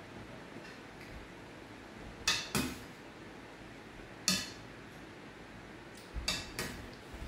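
Metal ladle clinking against a stainless steel pot while scooping broth: about five sharp clinks with a short ring, a pair a couple of seconds in, one near the middle and another pair near the end.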